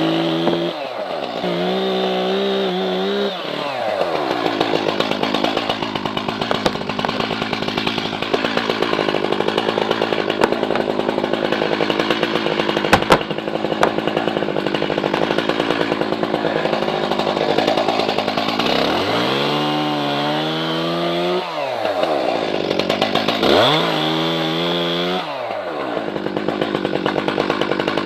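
Chainsaw cutting into a tree trunk at high revs, easing off to a lower pitch and back up near the start and twice more late on. A single sharp crack is heard about halfway through.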